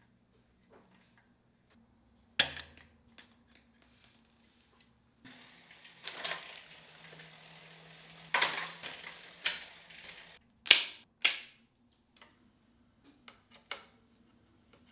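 Metal clicks, clacks and rattling of hand tools and bicycle parts during a road-bike build. There is a loud click about two and a half seconds in, a stretch of rattling and ticking in the middle, and two sharp clicks followed by small ticks near the end.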